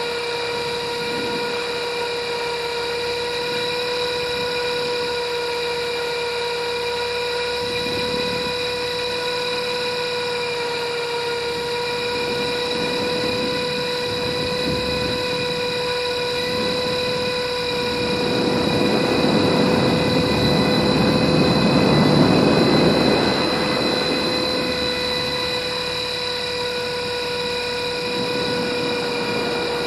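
RC helicopter's motor and rotors whining at a steady, unchanging pitch, heard from a camera mounted on the helicopter, with a rushing swell of noise about two-thirds of the way through.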